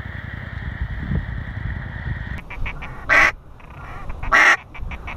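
A small boat's outboard motor running steadily at a distance. About two and a half seconds in, the sound cuts to two loud, short quacks about a second apart, blown on a duck call.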